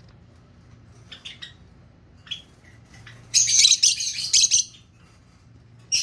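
Rosy-faced lovebird calling: a few short high chirps, then a loud, shrill burst of calling lasting about a second and a half, which starts again just at the end.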